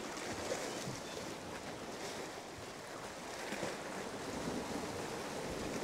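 Sea waves washing against a rocky shore, a steady noise that swells and eases gently, with some wind.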